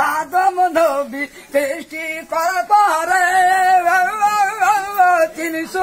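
A man singing unaccompanied in a high, strained voice: a few short phrases, then a long wavering held note from about two and a half seconds in until near the end.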